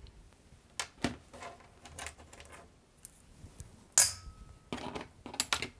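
Hand tools and machine parts being handled on a workbench: scattered light clicks and knocks, with one sharp metallic clink about four seconds in that rings briefly.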